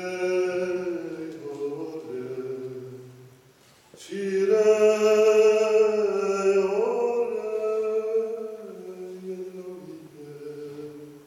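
A man singing a Slovak folk song alone and unaccompanied, in long held notes that step up and down in pitch. There are two phrases, with a short breath pause about four seconds in.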